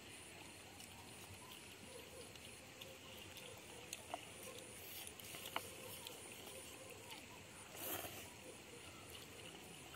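Quiet eating sounds of children having cup noodles with chopsticks, with one short noodle slurp about eight seconds in and a few faint ticks, over a steady faint outdoor background.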